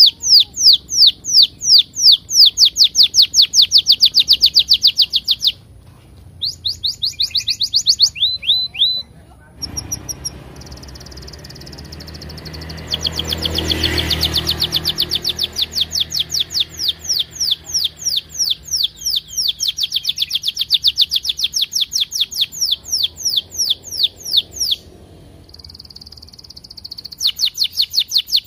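Domestic canary singing long runs of rapid repeated chirps ("cuit cuit"), each note sweeping downward, about five or six a second, broken by short pauses, with a held whistled note near the end. A low rumble swells and fades about halfway through.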